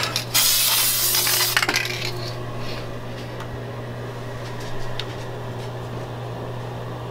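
Aerosol spray can hissing for about a second as activator is sprayed onto hydro-dipping film floating on water, with a few short clicks around it. A steady low hum runs underneath.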